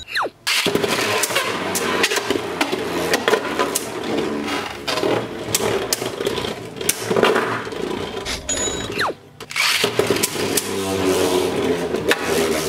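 Infinite Achilles and World Spriggan Beyblade Burst tops spinning and clashing in a plastic stadium: a steady scraping whir with rapid sharp clicks of collisions. Twice, at the start and about nine seconds in, a short falling tone and a brief lull come between rounds.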